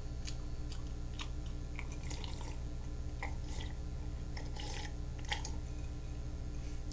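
Faint sipping and swallowing from a mug, with a few small clicks and wet mouth sounds, over a steady low hum.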